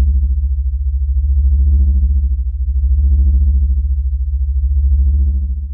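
Closing synthesizer music: a steady deep bass drone under soft chords that swell and fade about every one and a half seconds, fading out at the very end.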